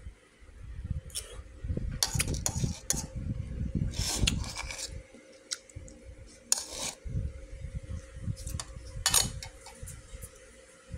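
A metal spoon scraping and clinking against a bowl of rice in several short bursts, over a low uneven rumble.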